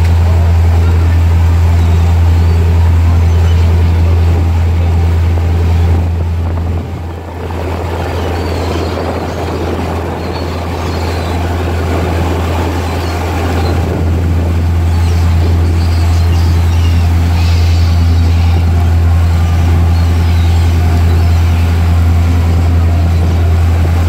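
Tour boat's engine running with a steady low drone under the rushing of its wake. The drone weakens about seven seconds in and comes back a few seconds later.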